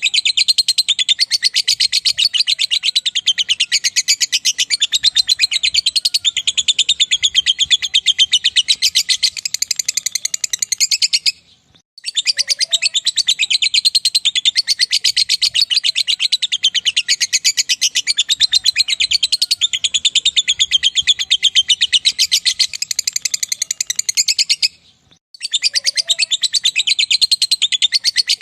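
Lovebird singing its long ngekek song: a fast, unbroken, high-pitched chatter. It runs in long phrases of about eleven to thirteen seconds, with two brief pauses, near the middle and near the end.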